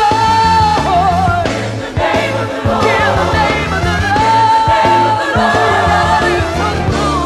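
Gospel song with a female lead voice holding long notes with vibrato, backed by a choir and a band with steady bass.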